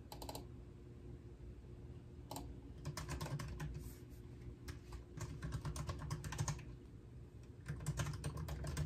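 Typing on a laptop keyboard: several runs of quick keystrokes with short pauses between them.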